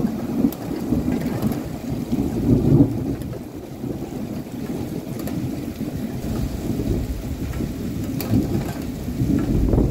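Thunder rumbling through steady rain in a thunderstorm. The rumble swells two to three seconds in, eases off, and builds again near the end.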